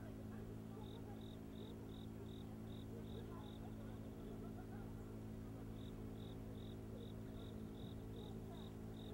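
An insect chirping: short, high chirps at one pitch, about three a second, pausing for about two seconds midway, over a faint steady hum.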